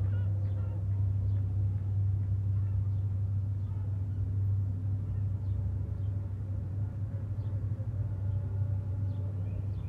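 A steady, low engine drone, a constant hum with a rumble under it, with faint higher tones coming and going over it.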